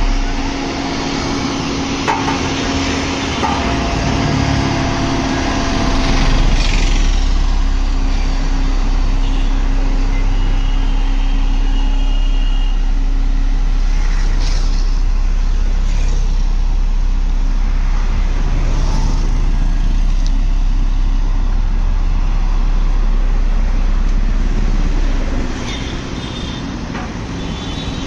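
Diesel engine of a LiuGong single-drum road roller running steadily as it rolls over a dirt road base, with a steady low drone that stops about three seconds before the end, leaving it quieter.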